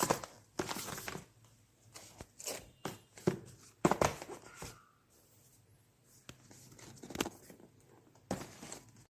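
Scattered, irregular clicks and knocks from handling, some sharp and some soft, with the loudest around three to four seconds in.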